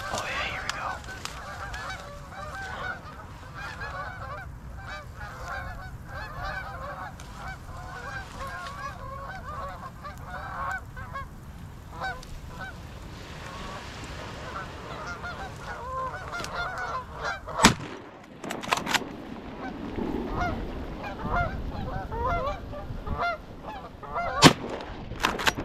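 A flock of Canada geese honking, many calls overlapping, then shotgun shots: the loudest about two-thirds of the way in, with a couple of quicker cracks after it and two more shots near the end while the geese keep calling.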